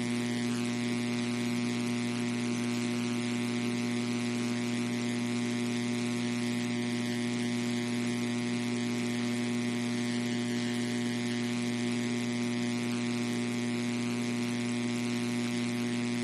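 Steady electrical mains hum with a buzz of several even tones and a hiss over it.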